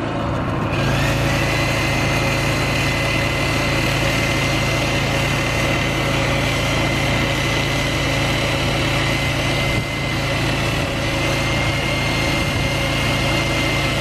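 A corded power drill boring into a wooden post, its motor whine rising as it spins up about a second in and then holding steady. A small portable generator's engine drones steadily underneath.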